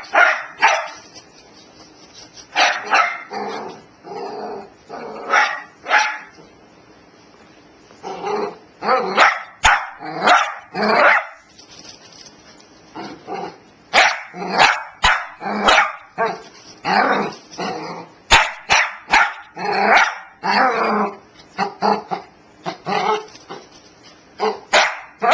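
A dog barking over and over in clusters of several barks, with short pauses between the clusters. A few sharp clicks are heard among the barks.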